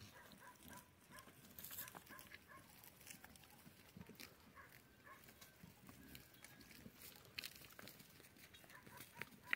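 Faint sounds of a goat herd grazing: scattered light clicks and rustles with short, faint high notes, and one sharper click near the end.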